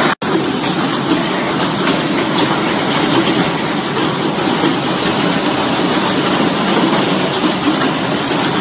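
Heavy hailstorm: hail and rain clattering down in a dense, steady rattle.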